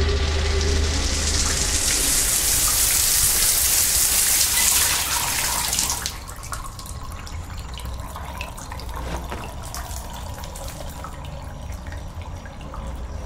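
Shower spray running, a steady hiss that cuts off suddenly about six seconds in, leaving faint dripping and small clicks.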